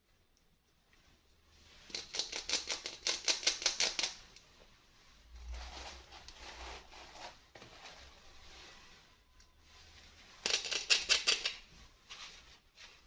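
Toy packaging being opened by hand: two bursts of rapid, crisp clicking, like quick cuts or tears through plastic and card, one about two seconds long and a shorter one near the end, with light handling rustle between them.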